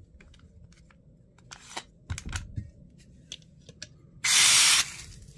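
A few sharp handling clicks and rubs, then a loud hiss of about half a second, a little after four seconds in, as gas from a can is injected through the fill valve into the gas magazine of a Glock 17 airsoft pistol.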